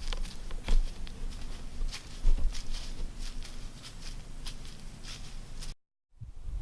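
Scattered light crackles and rustles, like movement through dry leaves, over a steady low rumble. The sound drops out to dead silence for a moment near the end, at an edit.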